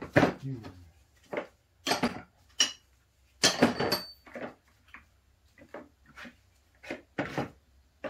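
Metal hand tools and parts being handled and set down on a workbench: a string of about a dozen sharp clanks and clinks, one ringing briefly about three and a half seconds in.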